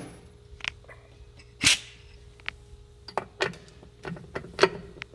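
Scattered short metallic clicks and knocks of hand tools and clutch parts being handled, five or six in all with the loudest about a second and a half in, over a faint steady hum.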